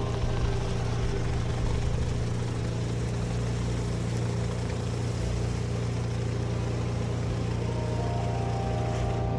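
Pressure washer running steadily: a constant engine hum under the hiss of high-pressure water spraying on concrete.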